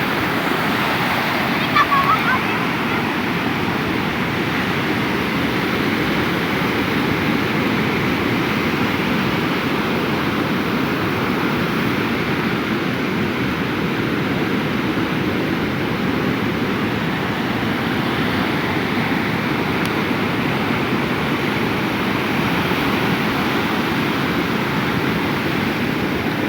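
Ocean surf washing steadily onto a beach, with a brief high-pitched sound about two seconds in.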